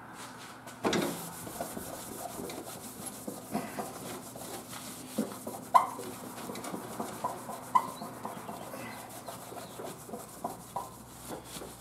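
A cloth rubbing and wiping tire-cleaner foam off a riding mower's plastic body panel, with irregular short squeaks and taps and a sharper knock about a second in.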